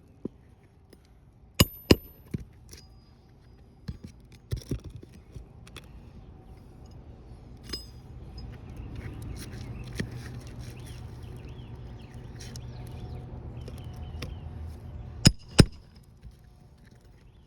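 Sharp metallic clinks and knocks of hand tools at work, loudest as two quick pairs of hits, one about a second and a half in and one near the end, with scattered lighter clicks between. A low, steady rumble swells up in the middle and fades away.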